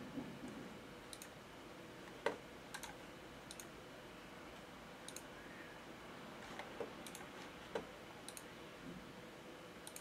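Computer mouse clicks, about a dozen short, faint clicks at irregular intervals, over a faint steady hum.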